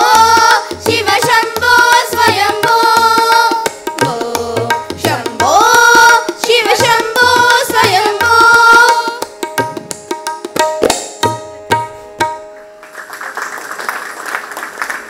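Girls' voices singing together in unison with a hand-drum accompaniment and a steady drone note; the singing ends about nine seconds in and the drumming stops a few seconds later. Applause follows near the end.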